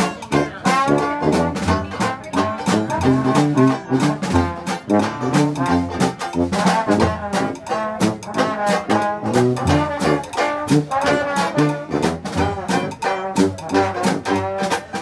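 Live Dixieland jazz band playing: trombone and brass lines over a tuba bass line, with a strummed banjo and drums keeping a steady beat.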